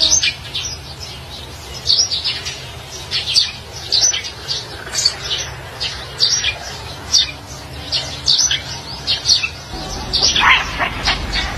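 Small birds chirping over and over in short, high notes, several a second, with a steady low background hum.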